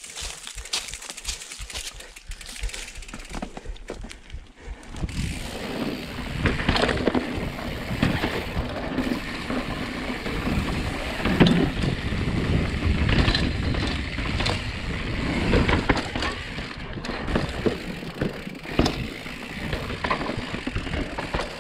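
Specialized Status mountain bike riding fast downhill over rock slab: tyres rumbling on the rock, with chain and frame rattling and sharp knocks over bumps. For about the first five seconds it is quieter, with scattered clicks, before the rumble picks up.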